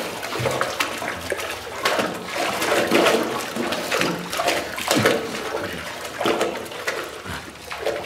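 Water sloshing and gurgling in repeated surges, about once a second.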